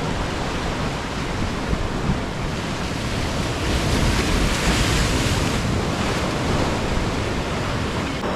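Ocean surf washing, with wind rumbling on the microphone. A louder rush of water swells about three and a half seconds in and lasts about two seconds.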